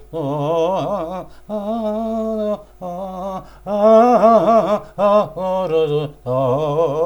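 A man singing a wordless melody unaccompanied, on syllables like 'da-da-da', in about six short phrases with a wavering vibrato on the held notes.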